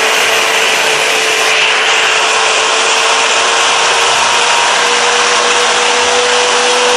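Electric stick blender with a chopper-bowl attachment running steadily, grinding a rempah spice paste with belacan into a coarse paste. Its motor whine edges slightly higher in pitch about four seconds in.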